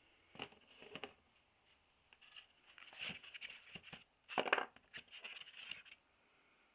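Handling noise at close range: scattered clicks and rustling, with the loudest cluster of knocks about four and a half seconds in.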